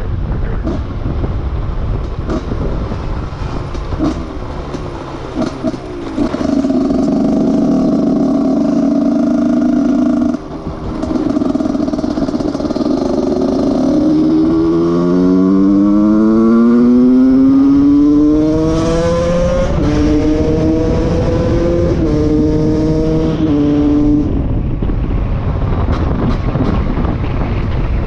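Husqvarna SM 125's single-cylinder two-stroke engine through a handmade aftermarket silencer: running unevenly at first, then held at steady revs, then accelerating hard with the pitch climbing for several seconds, before holding steadier revs that shift in small steps and settling near the end.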